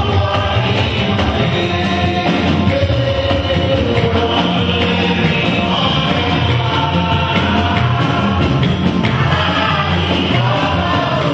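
Church congregation singing a hymn together in chorus, loud and continuous, over instrumental accompaniment.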